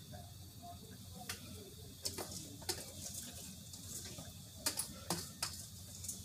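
A handful of short, light clicks and knocks of kitchenware being handled, scattered over a few seconds above a steady low hum.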